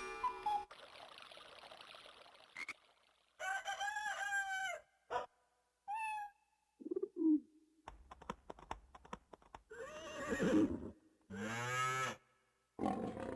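Yamaha PSR-E303 keyboard's Sound Effect Kit played one key at a time: a string of short, different sampled effects with brief gaps between them, among them animal calls.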